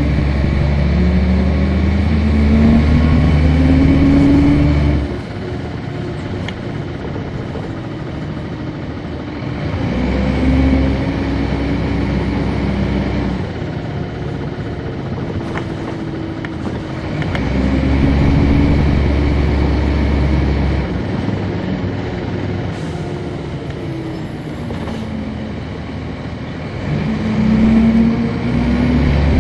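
1999 Nova Bus RTS transit bus, its Cummins ISC straight-six diesel and ZF Ecomat automatic transmission pulling away repeatedly. The engine note climbs in pitch and then drops back as the transmission shifts up, four times. Between these pulls are quieter, steadier stretches of coasting or idling.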